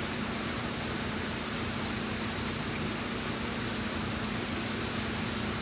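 Steady background hiss with an even low hum underneath, unchanging throughout; no separate sanding strokes stand out.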